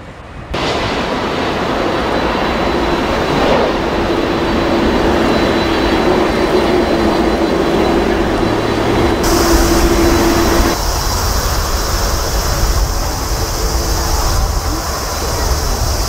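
Boeing 747 freighters' jet engines running on landing and final approach, a steady loud noise with a steady hum through it. It jumps in abruptly about half a second in and changes character twice, near nine and eleven seconds, as the footage cuts between aircraft.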